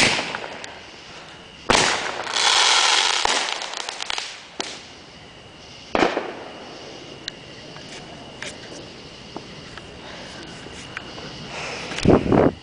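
Consumer fireworks going off: a bang, then another about two seconds in followed by a couple of seconds of dense crackling, a sharp bang around six seconds, and a loud burst of bangs near the end.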